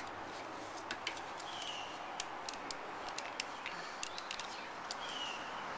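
Small plastic clicks and taps of Lego pieces being handled and pulled apart, irregular and light, over a steady low hiss.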